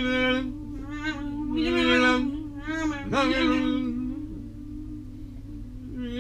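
Unaccompanied vocal trio of soprano, mezzo-soprano and bass singing in extended, nonsense-syllable style: a low held tone throughout, under short pitched vocal cries about a second apart, one swooping sharply upward about three seconds in, then a quieter stretch on the held tone.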